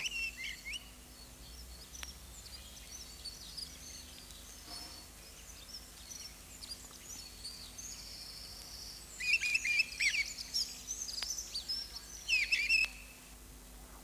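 Small songbirds chirping and twittering over a quiet background, with scattered single chirps at first and quick bursts of chirps about nine to ten and a half seconds in and again near the end.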